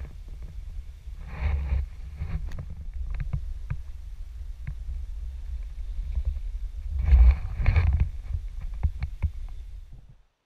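Sea kayak being paddled: a steady low rumble with many small knocks and drips, and two louder swells of water noise, one about a second and a half in and one about seven seconds in. The sound cuts off suddenly near the end.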